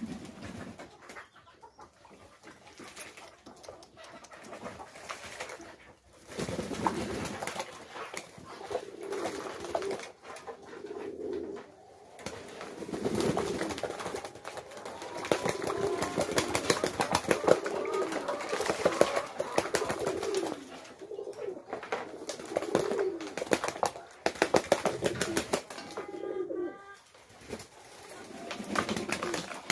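Domestic pigeons cooing over and over, with splashing and wing-flapping as several bathe in a shallow basin of water; the splashing and flapping are busiest in the middle stretch.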